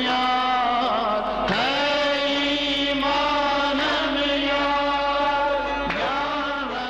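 A chant-like vocal line, slow and gliding, sung over a steady held drone, with short breaks about a second and a half in and near six seconds.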